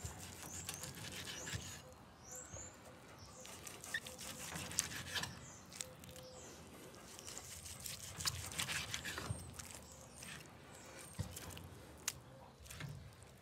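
A chef's knife slicing through a thick cooked steak on a wooden cutting board, with soft taps and scrapes of the blade and meat on the board. Faint high chirps sound a few times.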